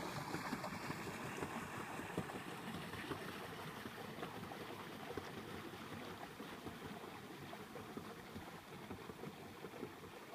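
Pelican pedal boat's rear paddle wheel churning and splashing the lake water, the steady splashing slowly fading as the boat pulls away.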